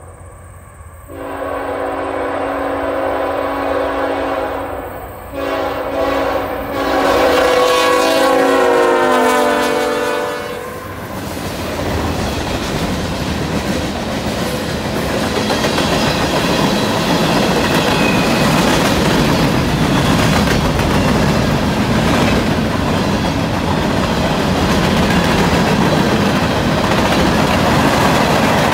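Diesel freight locomotive's air horn sounding three blasts on approach, the last and longest dropping in pitch as the locomotive passes close by. Then the train's loaded tank cars and boxcars roll past in a steady rush of wheel noise.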